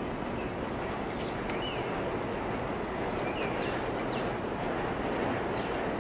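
Steady rushing and splashing of water in a sea otter pool, with faint short high chirps now and then.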